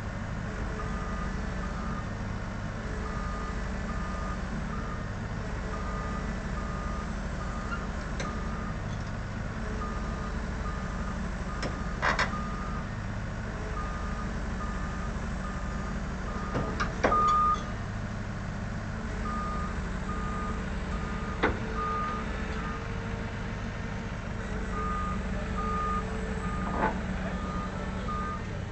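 Travel alarm on a Liebherr 32TTR crawler tower crane beeping steadily as it tracks down a low-loader's ramps, pausing twice, over a running engine. A few sharp metallic clanks stand out, the loudest about two-thirds of the way through.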